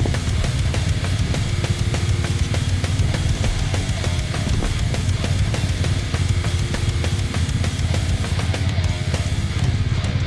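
Background heavy rock music driven by a drum kit, with a steady fast beat.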